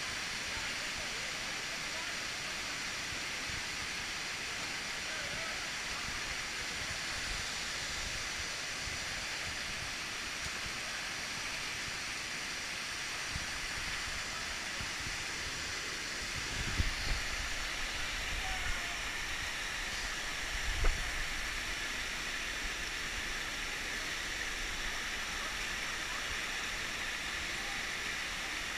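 Steady rush of a waterfall, shallow water cascading over rock terraces. A little past halfway come a few low thumps on the microphone.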